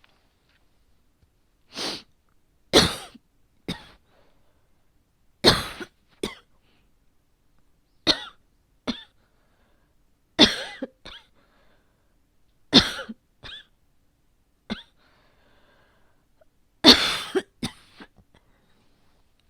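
A woman coughing in short bouts of one to three coughs every couple of seconds, about a dozen coughs in all. She takes the cough for her asthma flaring up.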